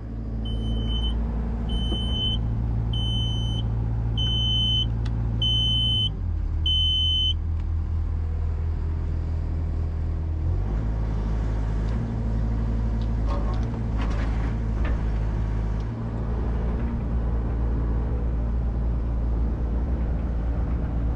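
Diesel engines of an excavator and a skid steer running under load, a steady low drone that shifts in pitch a few times. A backup alarm beeps about once a second for the first seven seconds or so, then stops.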